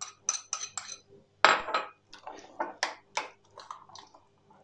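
A metal spoon clinking and scraping against ceramic bowls as strained yogurt is scraped from one bowl into another and stirred together: a quick run of sharp clinks, a louder clatter about one and a half seconds in, then more scattered clinks.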